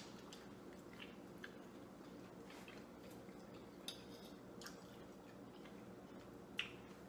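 Faint scattered clicks of metal forks against plates, with quiet chewing, over a low steady room hum; the two sharpest clicks come about four seconds in and near the end.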